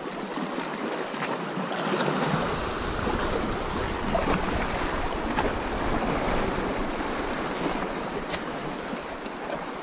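Small sea waves lapping and washing in shallow water, a steady wash of noise. A low rumble of wind on the microphone joins in about two seconds in and fades near the end.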